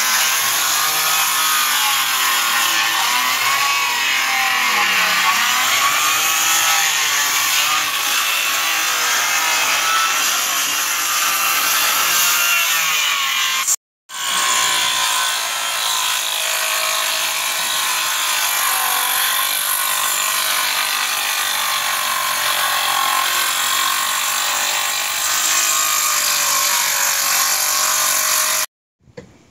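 Corded circular saw cutting OSB roof sheathing, its whine dipping and rising as the blade loads. It breaks off briefly about halfway through, starts again and stops just before the end.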